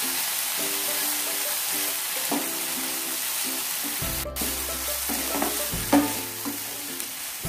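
Chopped onion and tomato sizzling in hot oil in a frying pan as they are stirred with a spatula, a steady hiss. Soft background music plays underneath.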